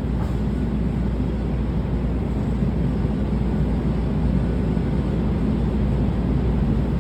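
Steady rumble inside a Metro A Line light-rail car as it runs along the street, heard from the passenger cabin.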